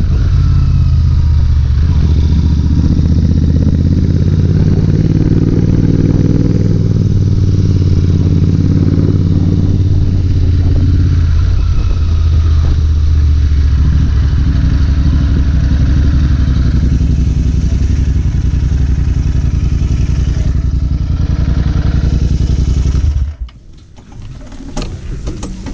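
Royal Enfield Interceptor 650 motorcycle engine running steadily as it is ridden, with road and wind noise. Near the end the engine is switched off and its sound stops suddenly, leaving a few faint clicks.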